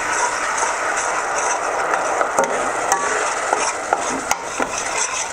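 A metal spoon stirring and scraping in a stainless steel pot of kuymak (melted clotted cream cooked with flour) as water is added, the hot fat sizzling steadily. Sharp clicks of the spoon against the pot come more often in the second half.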